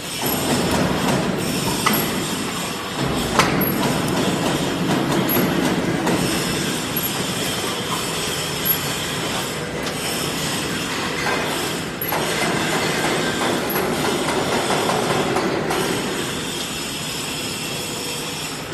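Concertina razor wire mesh welding machine running, a steady mechanical noise with a few sharp clicks.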